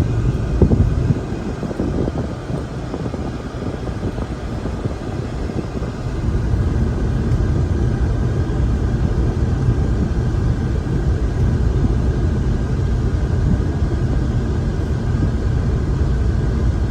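Steady low rumble that gets louder from about six seconds in, with a few short sharp sounds about a second in.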